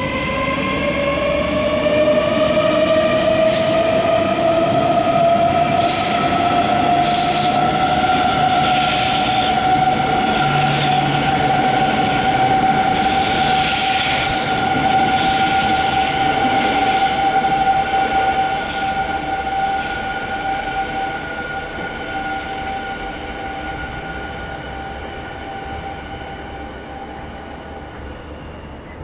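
Öresundståg electric multiple unit passing close by: its traction motors give a strong whine that rises in pitch over the first few seconds as the train gathers speed, then holds steady. Irregular bursts of wheel-on-rail noise come as the cars go past, and the whole sound slowly fades as the train draws away near the end.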